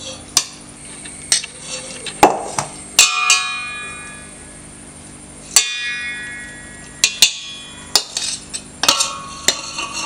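Metal spoon and stainless steel pots clinking and scraping as cooked rice is tipped from one pot into another and spread out, in irregular knocks. Two louder strikes, about three seconds in and again past five seconds, leave the steel ringing.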